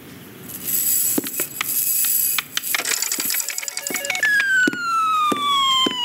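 Film sound effects: a busy run of small clicks, knocks and rattles, then, about four seconds in, a long whistle-like tone that slides steadily down in pitch.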